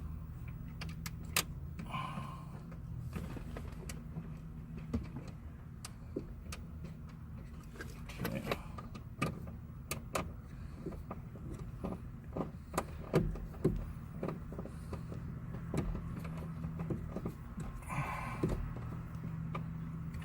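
Scattered small clicks and metallic taps of a screwdriver and screws as the radio's mounting screws are driven back into the dashboard, over a steady low hum.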